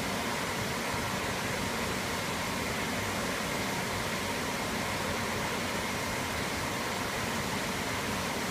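Steady, even hiss with a faint constant hum: the background running of a fish hatchery's water flow and equipment around the larvae tank.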